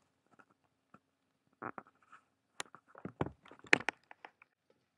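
Scattered light clicks and knocks of a frying pan and its lid being handled while an omelette is turned over with the lid. The knocks come thickest and loudest a little past the middle.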